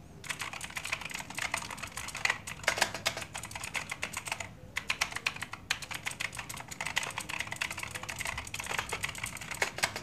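Fast typing on an Imperion mechanical keyboard with clicky blue switches: a dense stream of sharp key clicks, with a brief pause about halfway through.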